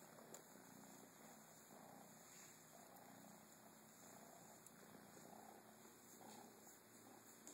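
A kitten purring softly, in a steady rhythm that swells about once a second.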